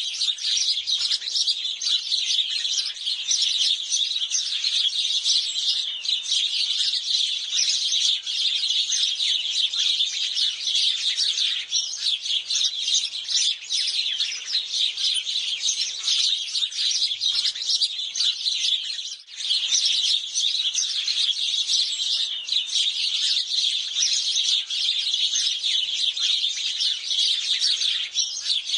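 A group of house sparrows chirping constantly, many short chirps overlapping, with a momentary lull about two-thirds of the way through.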